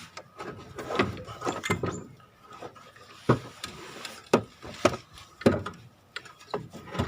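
Irregular knocks, clicks and rubbing as the parts of a removed car front suspension strut are handled and shifted by hand.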